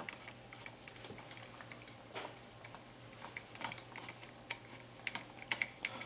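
Small irregular clicks and ticks of a wall light switch and its copper wires being handled and fitted, growing more frequent near the end, over a faint steady low hum.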